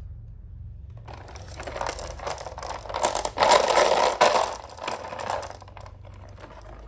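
Marbles rolling and clattering down a HABA wooden marble run, a dense rattle of clicks. It starts about a second in, is loudest in the middle and dies away near the end.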